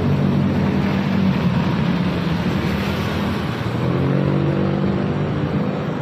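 Street traffic: car engines passing with a steady hum over road noise, and one engine note rising as a vehicle accelerates about four seconds in.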